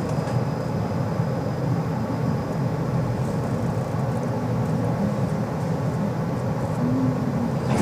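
Steady low rumble and hum inside a tram car.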